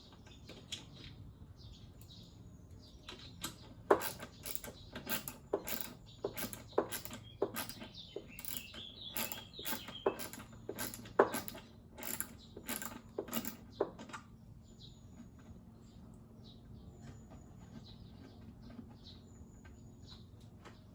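Ratchet handle with a 10 mm socket clicking as it backs out the M6 screws holding the tank, in a run of sharp clicks about two a second from about four seconds in until about fourteen seconds. Birds chirp faintly in the background.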